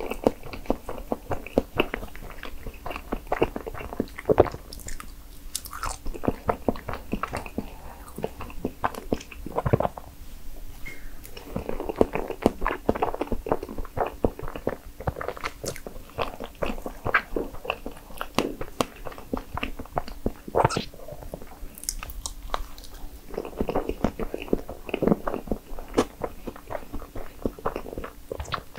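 Close-miked chewing and eating of a strawberry crepe cake: wet, smacking mouth sounds from the soft crepe layers, cream and strawberries, with many small, sharp clicks.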